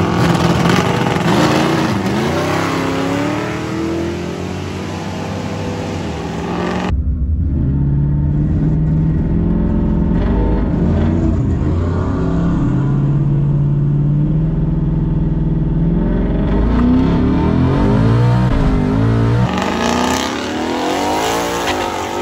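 Twin-turbocharged Ford Coyote 5.0 V8 of a 2019 Mustang GT at the drag-strip starting line, revving up and down and held at steady revs that step up and down. About seven seconds in it turns duller, heard from inside the cabin, and near the end it turns bright again, heard from outside.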